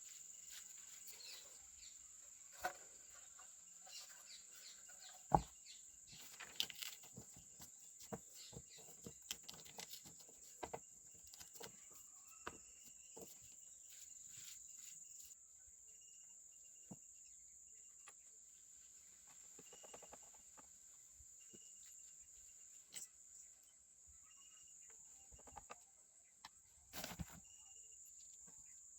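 Quiet scattered clicks and taps of small objects being handled, over a steady high-pitched hum, with a sharper knock about five seconds in and a cluster of knocks near the end.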